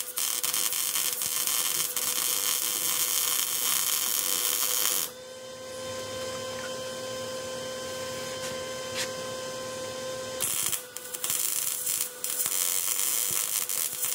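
Lincoln MIG-Pak 140 wire-feed welder arc crackling as a bead is laid on the chassis, stopping for about five seconds, with a steady hum in the gap, then starting again with a couple of short breaks. The welder suspects these welds suffered from a poor ground.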